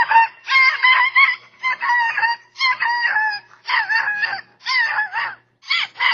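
Canine yelping: a run of about eight high, wavering yips and yelps, each about half a second long, one to two a second.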